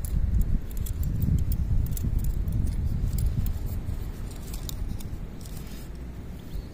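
Wind buffeting the microphone as an uneven low rumble that eases toward the end, with scattered faint clicks.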